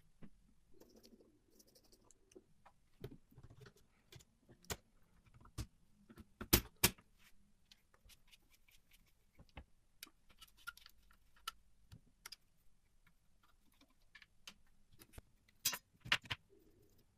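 Scattered clicks and taps of hand work on a vintage mechanical typewriter, small metal parts and tools being handled. There are two sharp knocks close together about six and a half seconds in, and another small cluster of knocks near the end.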